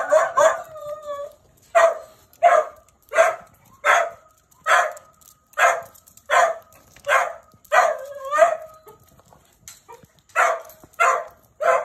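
A dog barking over and over, roughly one sharp bark every 0.7 seconds, excited and worked up. It pauses for about two seconds near the end, then barks twice more, with a thin high whine held between some of the barks.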